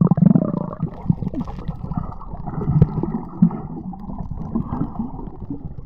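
Muffled underwater sound as the camera goes under: water rushing and air bubbles gurgling around the diver, with occasional knocks.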